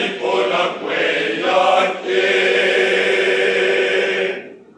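Choir of boys and young men singing together, ending on a long held chord that cuts off sharply near the end.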